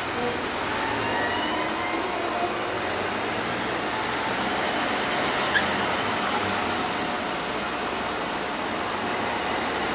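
Steady street traffic noise with a car engine running at low speed. A faint engine tone rises in pitch over the first few seconds, and there is one short click a little after halfway.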